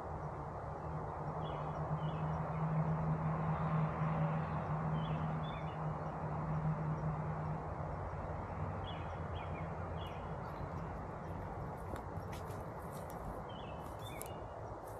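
Carniolan honeybees humming in a steady, low drone as swarm bees are gathered at the hive entrance, loudest in the first half and then fading. Birds chirp now and then, and there are a few light clicks near the end.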